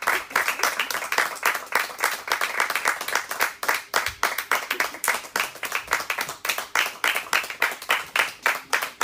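A small theatre audience applauding steadily, with many individual hand claps heard distinctly.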